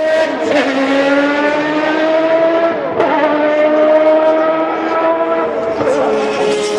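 Racing car engine accelerating hard through the gears. Its pitch climbs in each gear and drops at upshifts about half a second, three seconds and just under six seconds in.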